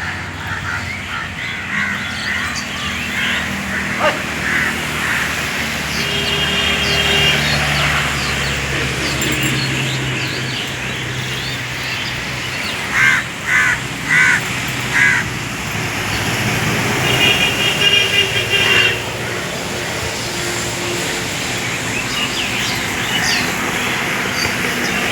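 Crows cawing outdoors, with four loud caws in a row about halfway through. Smaller birds chirp and trill over a steady background hiss and a low hum.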